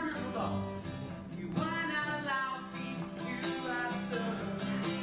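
Music: acoustic guitar with a voice singing over it.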